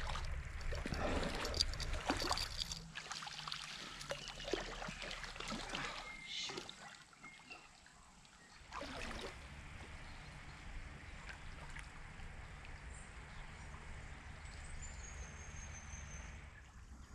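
Shallow stream water running steadily, with bumps, rustling and low buffeting on the microphone in the first few seconds. A faint high whistle comes near the end.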